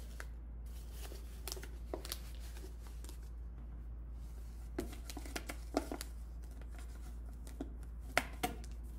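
Construction paper rustling and crinkling as it is pressed over the end of a cardboard paper towel tube, with scattered short taps and snaps, a pair of sharper ones near the end as a rubber band is fitted over the paper. A steady low hum lies underneath.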